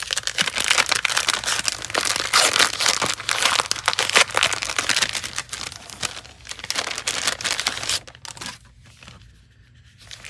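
Thin biodegradable plastic bags and their plastic wrapping crinkling and crackling as they are handled and unwrapped. The crinkling is dense for about eight seconds, then drops to a few quieter rustles.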